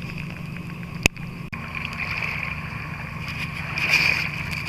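Chorus of 13-year periodical cicadas: a steady high-pitched drone that swells near the end, over a low rumble. A single sharp click about a second in.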